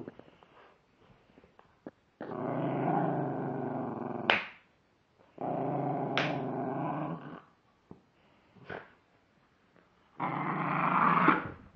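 A dog growling in three long spells. The first ends in a short sharp bark, and the second is broken by another.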